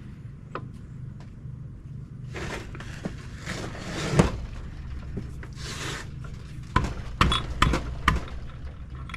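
Steel gears and shafts of a Borg Warner T96 manual transmission scraping and clanking as they are worked out of the rusty case, ending in a run of sharp metal knocks. A steady low hum lies underneath.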